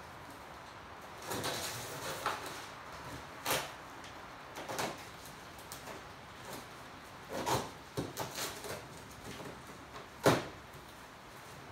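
Cardboard shipping box being handled and opened by hand: a string of short scrapes and rustles of cardboard, the sharpest about ten seconds in.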